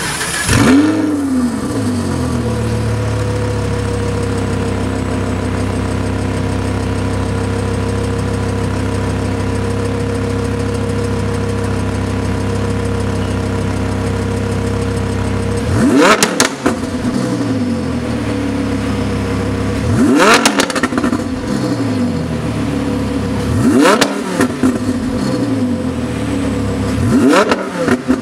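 Lamborghini Huracan LP610's V10 engine, breathing through an Fi valvetronic catback exhaust with quad tips, starting with a loud flare that settles into a steady idle. Later it is blipped four times in quick revs, each rising sharply and falling back to idle, a few seconds apart.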